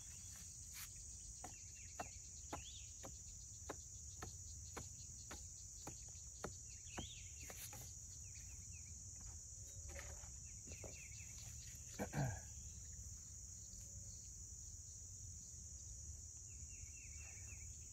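Steady high-pitched insect chorus in a rural field, with faint irregular clicks and taps from hand tools working dry, hard ground about once a second, a few short bird chirps, and one louder brief falling sound a little past the middle.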